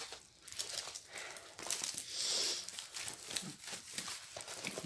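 Crinkling and rustling of a diamond-painting canvas and its clear plastic cover film being folded in the hands, with scattered small crackles and a longer rustle about two seconds in.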